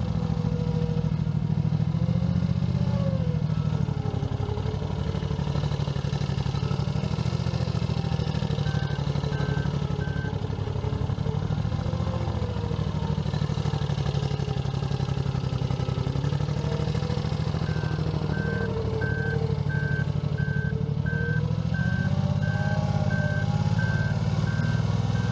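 Mustang skid steer loader's engine running, its pitch rising and falling as the machine works. A backup alarm beeps about twice a second in a short run about nine seconds in, then again from about eighteen seconds on.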